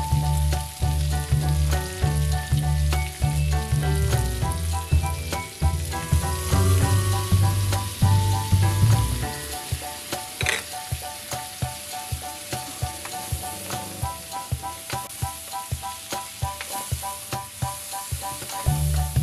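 Vegetables and pork sizzling in a metal wok as a plastic spatula stirs and scrapes them, over background music. The music's bass drops out about halfway.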